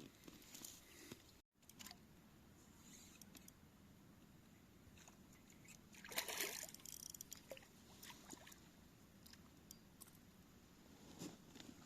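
Near silence with faint sloshing of river water against a small boat, and one soft splash about six seconds in.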